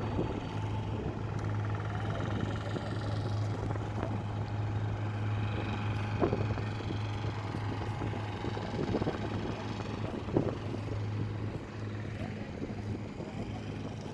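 A steady low mechanical hum with a couple of brief knocks.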